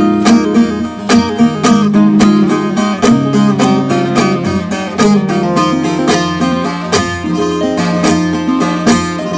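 Instrumental break of a Turkish folk song (türkü): a plucked-string melody over held bass notes and a steady beat.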